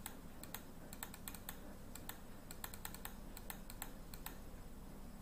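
Faint, irregular clicking of computer keys, about four strokes a second, over a low steady hum.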